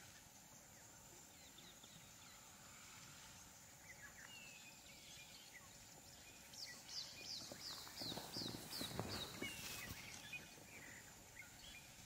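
Faint African bush ambience with birds calling: scattered chirps, and a run of about seven quick high descending notes in the middle. Over it runs a thin steady high whine, and there is a stretch of louder rustling and crackling in the second half.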